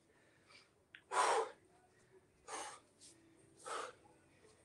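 A man breathing hard while recovering from a set of burpees: three heavy breaths out, roughly a second apart, the first the loudest.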